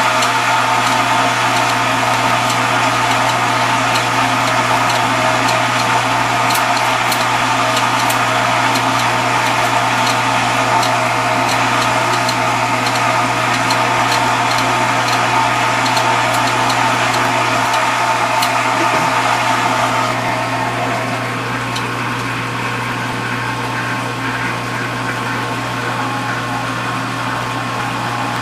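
Vintage KitchenAid KDS-18 Supurba dishwasher running with its motor and pump humming steadily, a rushing noise over the hum. About twenty seconds in the rushing part drops back and the hum carries on.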